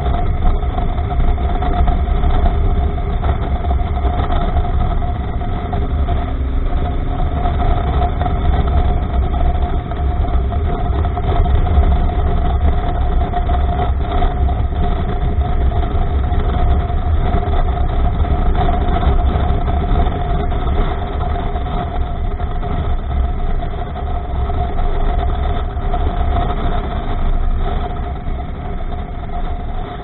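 Honda Africa Twin motorcycle under way on a dirt road: the engine runs steadily, with a constant whining note, under heavy wind rumble on the microphone. The sound eases slightly near the end.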